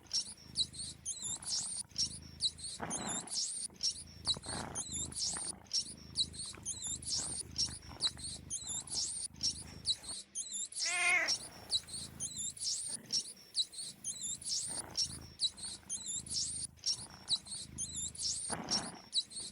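Mice squeaking: short, high-pitched squeaks repeating several times a second without a break. About eleven seconds in, a cat gives one wavering meow.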